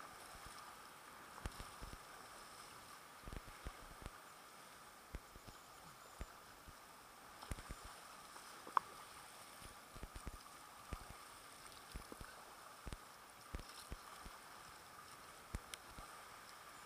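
Faint water sounds around a paddled kayak: irregular light knocks and splashes over a steady hiss, with one brief sharp squeak about nine seconds in.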